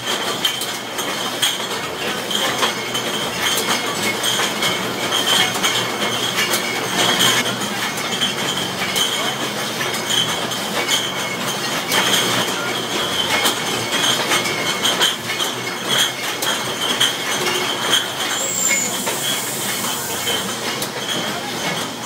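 Wine bottling line running: steady mechanical clatter from the filler, corker and conveyor, with glass bottles clinking against each other and a constant high whine underneath.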